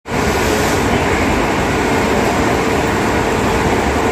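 Railway station noise: a steady rumble of train and platform sound with a faint steady hum underneath, as an electric-hauled express approaches from down the line.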